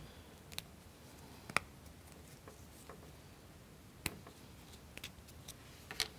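Scattered light clicks and taps of small plywood parts handled by hand: wooden washers being pushed onto the ends of a wooden model crankshaft. About half a dozen separate clicks, the sharpest about a second and a half in and near the end.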